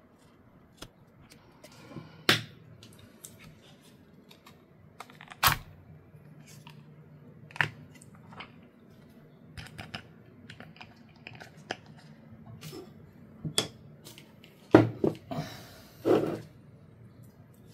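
Scattered plastic clicks, cracks and knocks as a car door speaker is worked free of its plastic mounting ring and the ring is handled and set down, with a few sharper knocks standing out and a cluster of them near the end.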